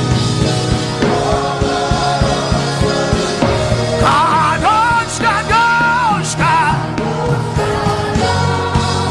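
Gospel worship music: a drum kit keeps a steady beat under bass and sustained chords, and a voice sings a few held, wavering notes in the middle.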